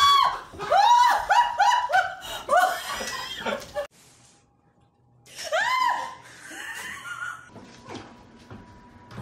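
A woman laughing hard in a quick run of ha-ha pulses, about three a second, that cuts off suddenly; after a second of near silence comes a single short cry and faint voices.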